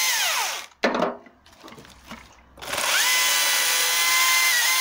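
Husqvarna T536Li XP battery chainsaw's electric motor and chain whirring in the air: one run winding down just after the start, then the saw spins up again about two and a half seconds in, holds a steady high whine for about two seconds, and winds down near the end. A short sharp knock sounds about a second in.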